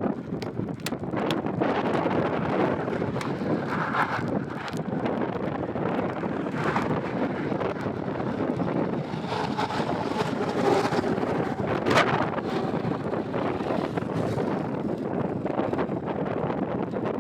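Strong wind buffeting the microphone in a steady rushing roar, with scattered sharp pops, the loudest about twelve seconds in.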